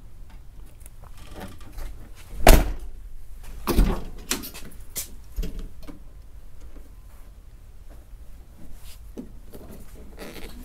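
Car door being handled: a loud clunk about two and a half seconds in and a second one about a second later, with light taps and clicks in between.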